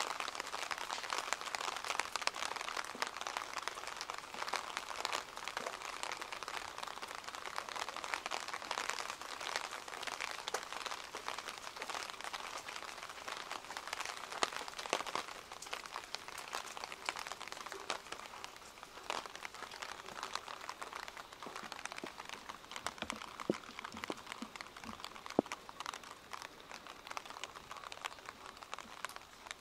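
Steady rain pattering: a dense crackle of small drop ticks over a soft hiss, easing off slightly in the second half.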